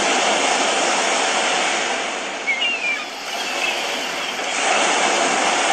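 HoMedics Sound Spa sound machine playing its ocean track through its small speaker: a wash of recorded waves that swells, ebbs about halfway through and swells again, with a few faint bird chirps in the middle.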